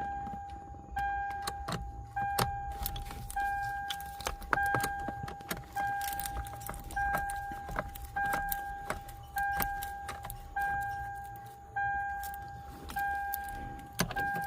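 A car's dashboard warning chime sounding over and over, one clear tone about every 1.2 s, each ringing out and fading. Irregular sharp clicks of plastic trim and parts being handled come through between the chimes.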